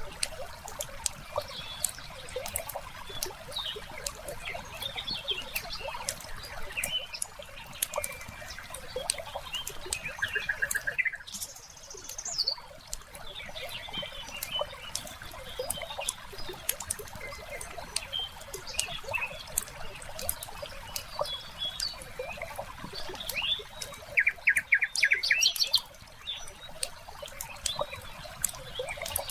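Crackling fireplace, popping in quick irregular clicks, with small birds chirping over it. A short rapid trill comes about ten seconds in and a louder one near the end.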